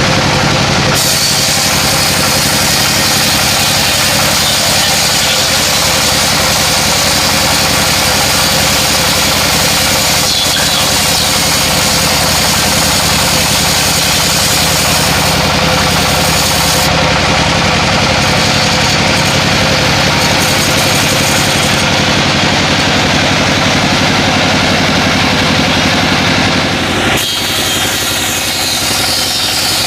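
Engine-driven sawmill running steadily, its engine drone mixed with the noise of the saw. The sound shifts abruptly about a second in and again near the end.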